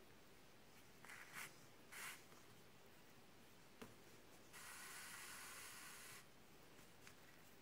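Faint rasping of sewing thread being drawn through a crocheted acrylic-yarn toy: two short rasps, a tiny click, then a longer steady hiss of about a second and a half as a long length of thread is pulled through.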